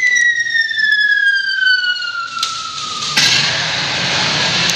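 A long siren-like tone slowly falling in pitch, which cuts off sharply about three seconds in and is followed by a loud rush of noise: the arena's end-of-game signal.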